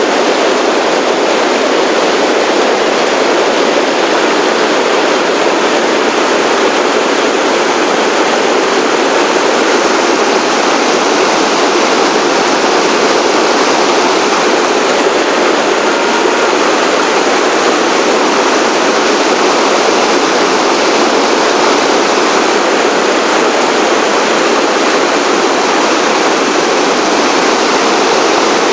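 Whitewater rapids: a loud, steady rush of churning river water.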